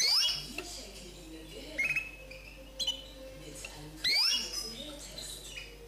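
Common linnet × canary hybrid (a linnet mule) singing: short phrases of quick sweeping high notes and trills, one starting right at the beginning and others about two, three and four seconds in, with quieter twittering between them.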